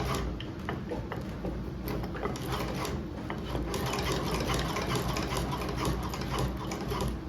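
Manual cobbler's sewing machine running, its needle mechanism clicking and clattering in quick repeated strokes while it stitches with a lengthened stitch setting.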